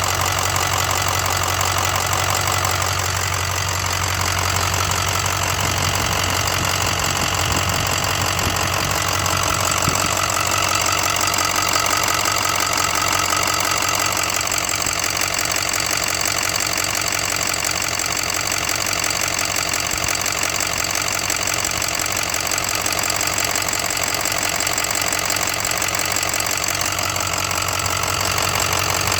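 2006 6.0 Powerstroke V8 turbo-diesel idling steadily, with a rapid, even ticking knock running through it, which the owner cannot place as lifter tick or rod knock.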